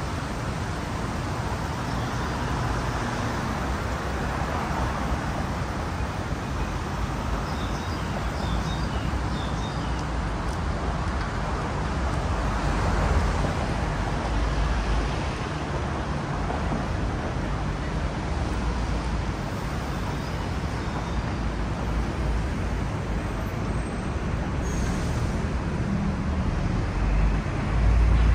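Steady urban road traffic noise, a low rumble of passing vehicles that swells a little midway and again near the end.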